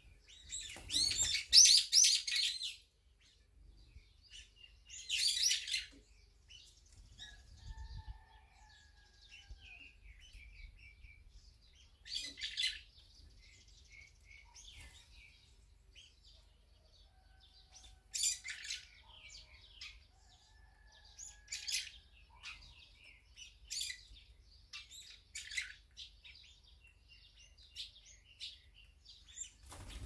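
Brown-eared bulbuls calling at a seed feeder: a loud burst of high-pitched chattering calls about a second in, another around five seconds, then shorter calls scattered through, with a flutter of wings.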